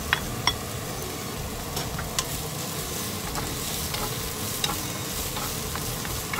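Sliced red onion and chopped garlic sizzling in oil in a nonstick frying pan, with scattered light taps and scrapes of a wooden spatula stirring them. Two sharp clicks near the start as the garlic is scraped off a plate into the pan.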